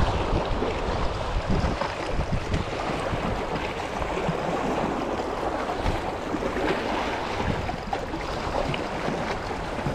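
Wind buffeting the microphone over a steady wash of water.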